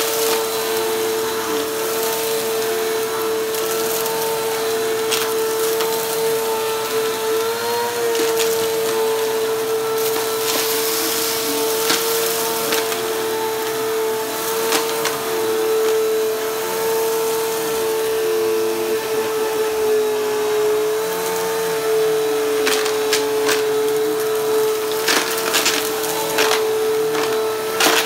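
Upright bagless vacuum cleaner running on a shag rug, with a steady motor whine. Small debris (sequins, buttons, confetti) clicks and rattles as it is sucked up, most often near the end.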